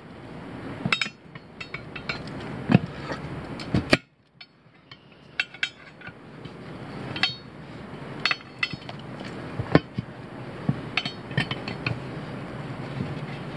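Steel tire irons clinking and knocking against a steel wheel rim while a tire bead is levered over the rim by hand: scattered sharp metallic taps and clinks, some ringing briefly. The sound drops out abruptly about four seconds in, then the taps resume.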